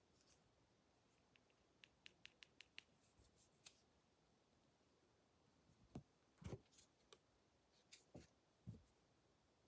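Faint scissors snipping: a quick run of about six sharp snips a couple of seconds in, with a few soft low thumps of handling later on.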